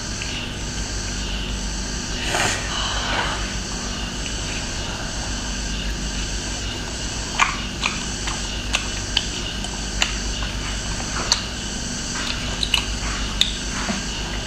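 Close-miked eating of a large chili-oil-coated piece of seafood: a short noisy slurp about two seconds in, then sharp wet mouth clicks and smacks of chewing scattered through the second half, over a steady background hum.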